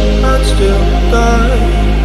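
Slow electronic pop music without vocals: sustained synth chords over a steady low bass, with no drum hits.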